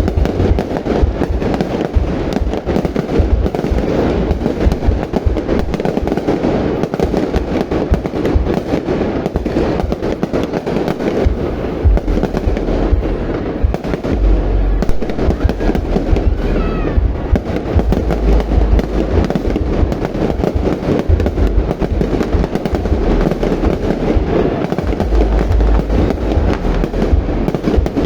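A fireworks display going off in a continuous barrage: rapid crackling bursts over deep, repeated booms, with a faint rising whistle a little past halfway.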